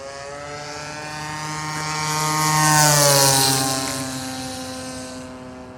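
Radio-controlled model airplane's DLE 20 single-cylinder two-stroke gasoline engine and propeller making a pass: the sound grows louder, peaks about three seconds in with a drop in pitch as it goes by, then fades away.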